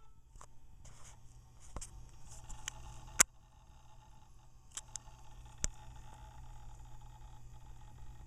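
IBM ThinkPad 380ED laptop hard drive seeking hard during startup: faint, irregular clicks and ticks, with a sharper click about three seconds in and another about five and a half seconds in, over a faint steady hum.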